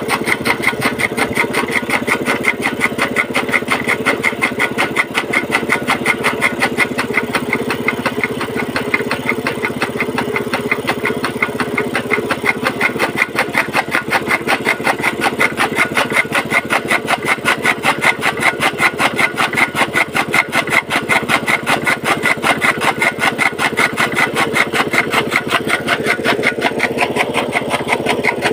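Small petrol engine running steadily, belt-driving a chaff cutter (toka) as green fodder is fed in and chopped, with a fast, even rhythm of pulses from the machine.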